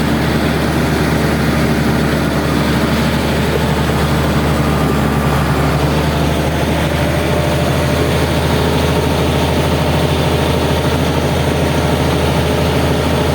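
Zoomlion bulldozer's diesel engine running steadily with a deep, even drone.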